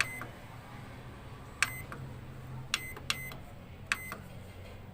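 Microwave oven switched on, its transformer giving a steady low hum, with about six short, sharp clicks spread through it.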